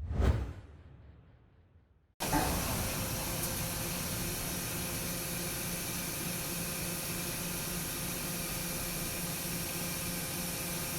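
A short hit that dies away over about two seconds. Then, from about two seconds in, a Mazak Integrex 400-IV CNC turning centre runs steadily through a facing cut: an even hiss over a low steady hum.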